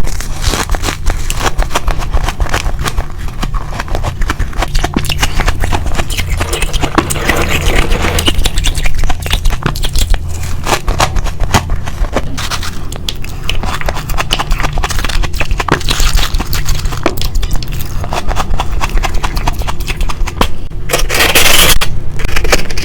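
Close-miked biting and chewing of frost, a dense run of crunching and crackling with a louder crunch near the end.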